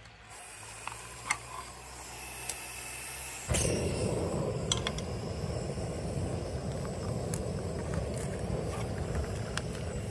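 Clicks as a portable gas camp stove is lit with a lighter. About three and a half seconds in the burner catches and runs with a steady low rush of flame under a frying pan, with an occasional light knock of tongs against the pan.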